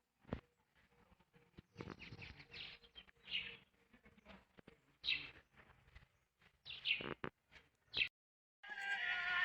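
Birds chirping in short separate calls, with scattered knocks and clicks, one sharp knock near the start. Music starts near the end.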